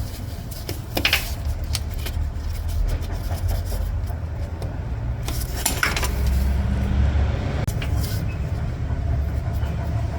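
A few sharp metallic clicks and clinks of hand tools and parts as a hose clamp is fitted to the power steering return hose, over a steady low rumble.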